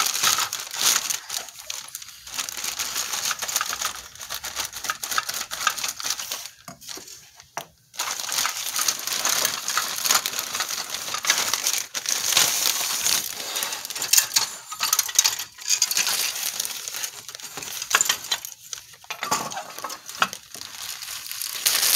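Clear plastic bag crinkling while injection-moulded plastic model-kit sprues are pulled out of it, the hard plastic parts clicking and clattering against each other and on the workbench. Briefly quieter about a third of the way in.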